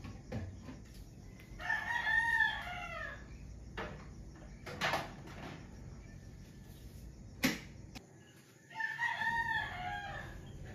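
A rooster crows twice, each crow about a second and a half long, with a few sharp knocks in between.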